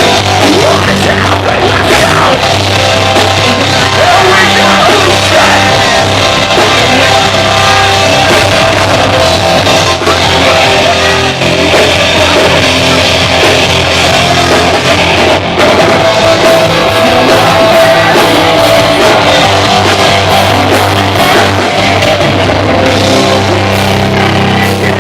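Live rock band playing loud, distorted electric guitars, bass and drums, with sung and yelled vocals, as heard through an audience recording in a club.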